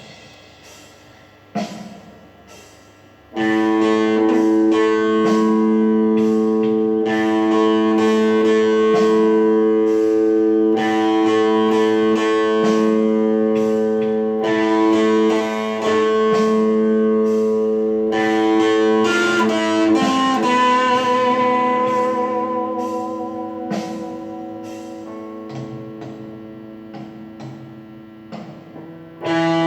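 Guitar improvisation over a sustained backing drone, with effects: soft for the first few seconds, then long held notes swell in loudly about three seconds in, bend and waver in pitch a little past the middle, fade, and come back loud near the end.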